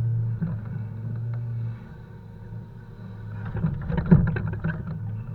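Truck diesel engine running at a steady drone that eases off about a third of the way in, then a burst of clattering knocks near the end, loudest about four seconds in, from logs being handled during unloading.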